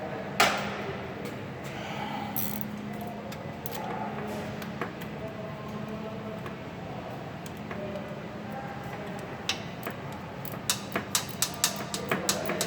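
Hand tools working on A/C line fittings: a sharp metallic click about half a second in and scattered light clinks, then a ratchet wrench clicking in quick, even strokes near the end as a fitting is tightened. A steady low hum runs underneath.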